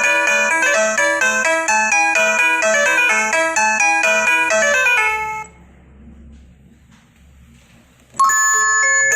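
Electronic doorbell chime tune: a quick melody of bell-like notes over an even beat that fades out about five seconds in. After a pause of about three seconds, another chime tune starts abruptly near the end.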